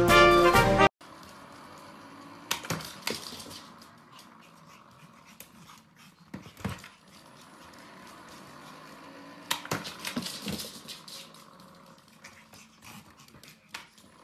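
Trumpet-led swing music cuts off about a second in. Then, after a short quiet stretch, come a few sharp knocks and clatters in clusters, from an automatic dog ball launcher and its ball on a wooden floor.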